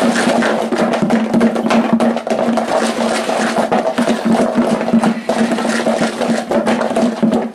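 Chicken nuggets with hot sauce being shaken hard in a lidded plastic food container: a continuous, rapid rattling and knocking of the pieces against the plastic walls and lid.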